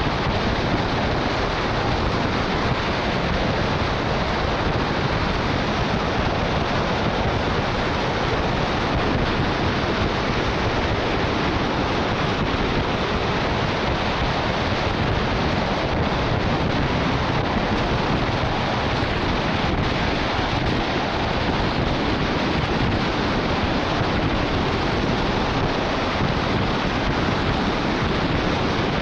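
Steady rush of wind over a roof-mounted camera's microphone on a truck driving at highway speed, mixed with the hiss of tyres and spray on the rain-soaked road.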